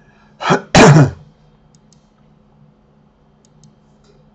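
Two loud bursts of a person's voice that are not words, a short one about half a second in and a longer, louder one just after, like a cough. Faint mouse clicks, many in quick pairs, tick through the rest.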